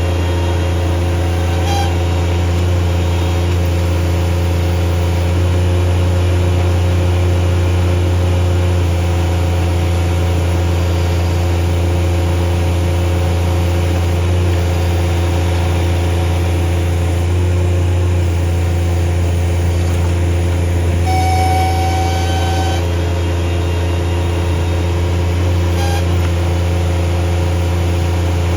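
Bobcat MT100 mini track loader engine running steadily while it works a hydraulic M06 backhoe attachment. A brief high squeal comes about two-thirds of the way through, the sound the owner puts down to the attachment pushing the hydraulic valves onto relief.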